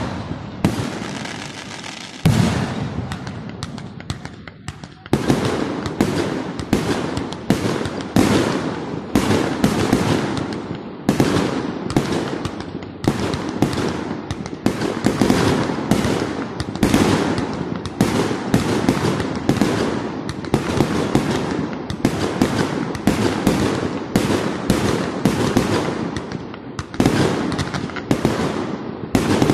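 Aerial fireworks display: shells bursting with sharp bangs that echo, a few spaced bangs at first, then from about five seconds in a near-continuous barrage of two or three bangs a second.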